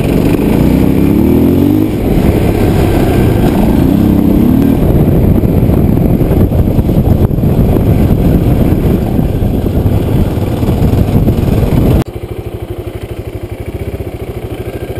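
Dirt bike engine running hard while riding, rising in pitch twice in the first few seconds as it accelerates. About twelve seconds in it cuts abruptly to the same bike idling with a steady, even pulse.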